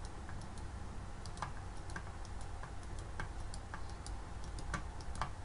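Computer mouse button clicked over and over, short sharp clicks at an uneven pace of roughly two to three a second, over a low steady hum.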